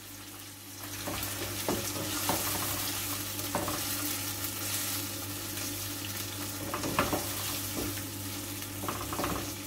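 Raw chicken pieces sizzling in hot oil with fried onions and ginger-garlic paste in a non-stick kadai, being stirred and turned with a spatula that scrapes and knocks against the pan a few times. The chicken is at the searing stage, just added to the hot oil.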